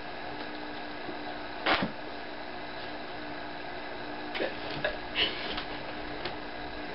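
A steady low room hum with a few short rustles and taps of books being handled: pages turned and a heavy dictionary lifted. The sharpest tap comes about two seconds in, and a cluster of softer rustles follows from about four to six seconds in.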